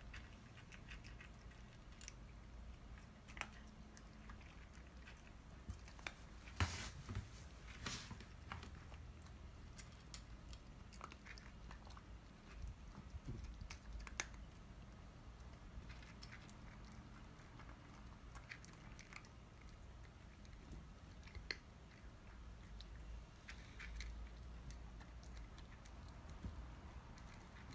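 Two cats crunching dry kibble: faint, irregular chewing crunches and clicks, with a few louder clicks about seven to eight seconds in.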